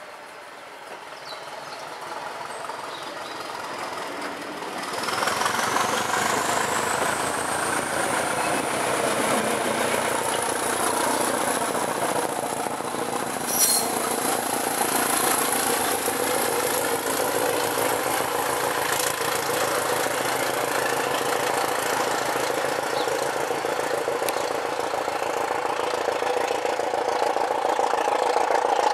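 Class 205 'Thumper' diesel-electric multiple unit's English Electric diesel engine throbbing as the train pulls away. About five seconds in the engine comes up to power and grows louder, with a high whine rising in pitch over the next few seconds, then holding steady. There is one sharp click near the middle.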